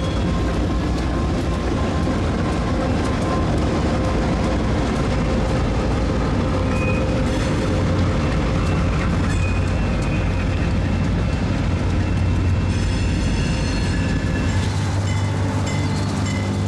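Diesel-electric freight locomotives, EMD units and an ex-Conrail GE Super 7 (B23-7S) rebuild, running past close by with a steady loud rumble of engines and wheels on rail. Near the end the deepest rumble drops away and several steady tones come through.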